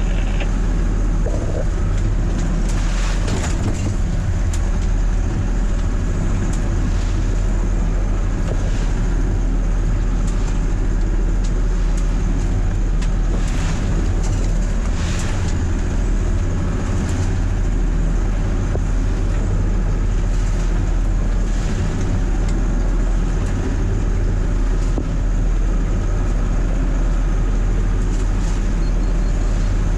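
Perkins T6.3544M six-cylinder turbocharged marine diesel running steadily under way, heard from inside the boat's wheelhouse. Every few seconds a sharp splash of spray and wave breaks over the bow and hits the hull and windows.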